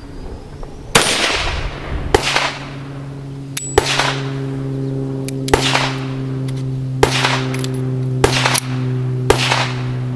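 AMT Automag II .22 Winchester Magnum Rimfire semi-auto pistol firing about seven shots, one every second or so, each crack ringing out briefly. A steady low hum runs under the shots from about two seconds in.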